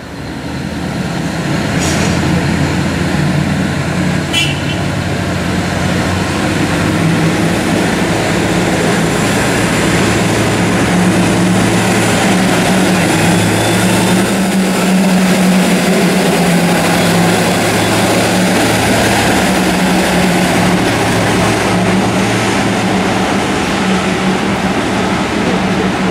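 Diesel engine of a yellow 08-32U track tamping machine running as it travels along the track: a steady low engine note that steps up and down in pitch a few times, over a rushing noise.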